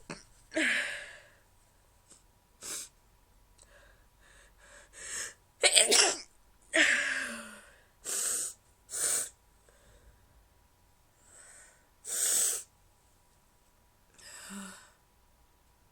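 A person's stifled sneezes, several short held-in bursts spread out with breathy inhales and exhales between them; the loudest comes about six seconds in, another around twelve seconds.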